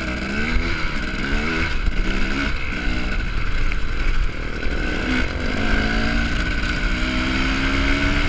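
Dirt bike engine accelerating through the gears while riding, its pitch climbing and dropping back at each shift, then a long steady rise. Wind rumbles on the microphone underneath.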